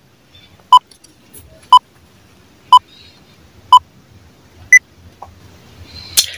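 Countdown-timer beep sound effect: a short beep once a second, four times at the same pitch, then one higher-pitched beep that ends the countdown.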